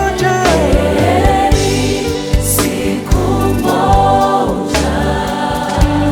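Gospel worship song with a choir singing over bass, keyboards and drums.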